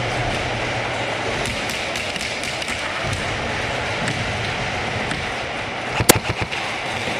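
Steady din of an indoor airsoft arena, with faint, scattered airsoft shots and BB hits pattering like rain. About six seconds in comes a short burst of several loud, sharp snaps close by.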